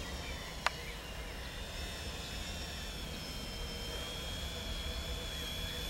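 Quadcopter's electric motors and propellers whining steadily as it flies under autopilot, a thin high hum that wavers slightly in pitch. A single short click about half a second in.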